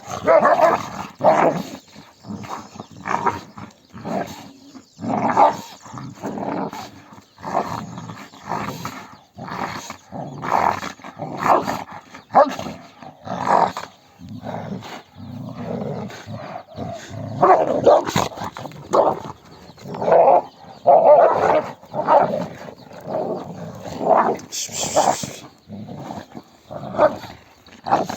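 Kangal dogs fighting over food: repeated growls and short barks, coming irregularly about one or two a second.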